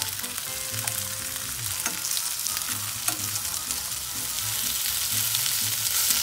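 Gurnard fillets sizzling steadily in butter and oil in a non-stick frying pan, with a few sharp clicks of metal tongs against the pan as the fillets are turned.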